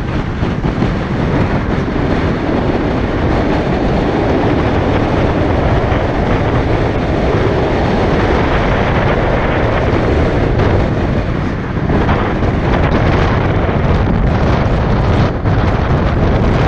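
Steady road noise from a moving car: low tyre rumble mixed with wind buffeting the microphone, unbroken and fairly loud.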